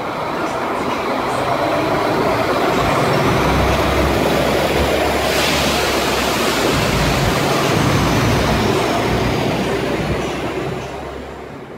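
Pesa SA139 diesel railbus departing: its diesel engine is running under power as the train pulls out and passes. The sound grows over the first few seconds, holds, then fades away near the end.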